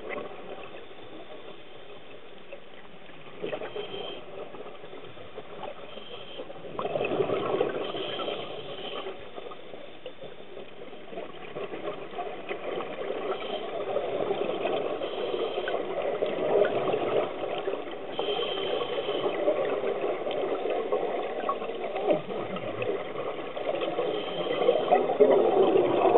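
Scuba regulator breathing underwater: a short hiss with each inhale every few seconds, and surges of bubbling as the exhaled air escapes.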